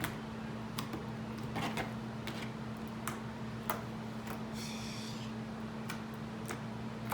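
Homemade slime of Elmer's school glue and Tide laundry detergent being squished and stretched by hand, giving irregular sharp pops and clicks, over a steady low hum.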